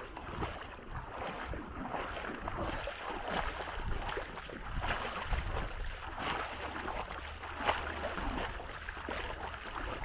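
Seaside ambience: waves washing on the shore, with wind rumbling on the microphone.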